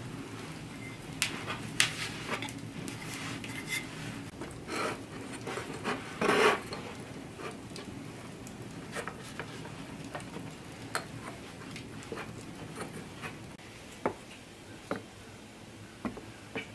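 Wooden rolling pin rolling and rubbing over pastry dough on a floured wooden table, with knocks, the loudest about six seconds in. After that come quieter handling of the dough and scattered small clicks and crackles.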